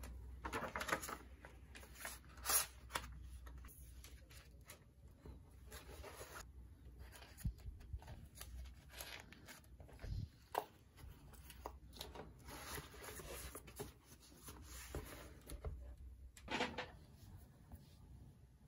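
A paper planner being handled: pages turned and rustled and the cover rubbed, in irregular short rustles with a few sharper ones.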